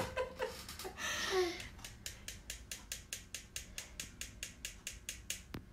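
Quick, even light taps of a paint-loaded brush knocked against a second brush handle, about five a second, starting about two seconds in, shaking paint droplets off for a splatter effect.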